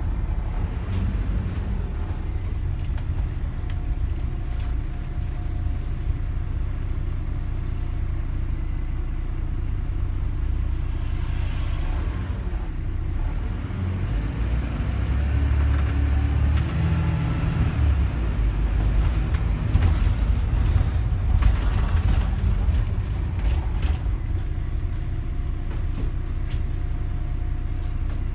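MAN 14.240 bus's six-cylinder diesel engine running under way, heard from inside the passenger saloon as a steady low rumble. The rumble grows louder about two-thirds of the way through.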